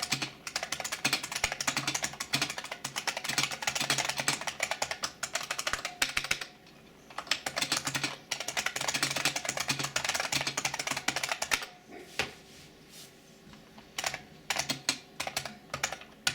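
Typing in quick runs on a 1989 IBM Model M keyboard, its buckling-spring keys clicking densely, with two short breaks, one about six and a half seconds in and a longer one around twelve seconds in.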